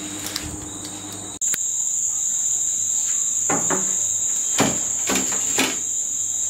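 Steady high-pitched chirring of crickets, becoming suddenly louder about a second and a half in, with a few short knocks over the middle of it.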